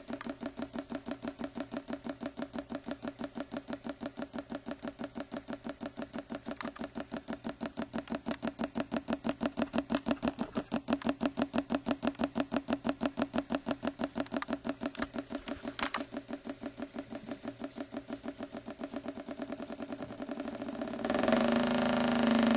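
A stack of magnets inside a pulse-driven copper-wire coil knocking in time with the pulses, about six a second, like a small piston. Near the end a louder, denser noise takes over.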